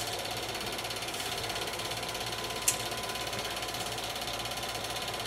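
Home-movie film projector running: a steady fast mechanical clatter from the film advance, with a faint motor hum. A sharp click comes at the start and another about halfway through.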